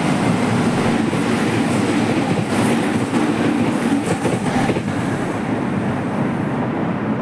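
Red-and-white Meitetsu express train passing through the station at speed without stopping: a loud, steady rumble of wheels on rail, with a run of clacks over the rail joints in the middle, easing slightly as it moves away near the end.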